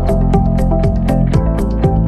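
Background music with a quick, steady beat and held notes over a bass line.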